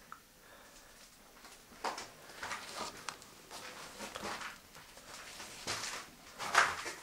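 Irregular soft knocks and scuffs of people moving about and handling the camera in a small bare room, with the loudest bump near the end.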